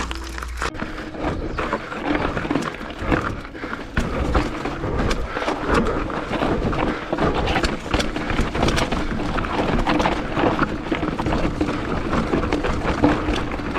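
Mountain bike rattling down a trail of loose rocks: a dense, irregular clatter of tyres striking stones and the bike's chain and frame knocking, without a break.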